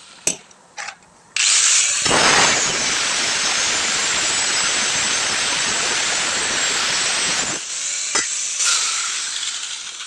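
A workshop tool running with a loud, steady hiss for about six seconds after a couple of clicks. It eases with a sharp click near the end, then starts again.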